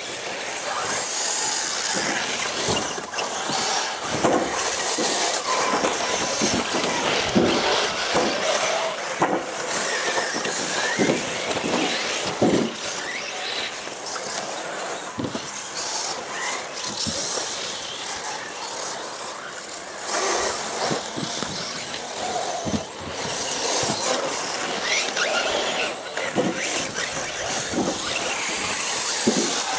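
Several radio-controlled off-road race cars running laps, their motors whining up and down in pitch as they accelerate and brake, with overlapping squealing.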